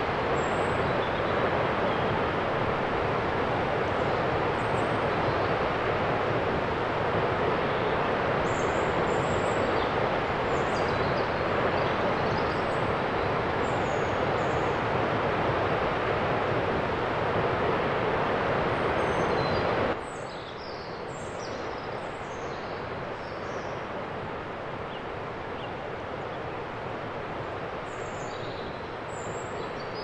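Steady rushing of mountain waterfall water, with small birds chirping high above it. About two-thirds of the way in, the water sound drops suddenly to a quieter rush, and the birds stay audible.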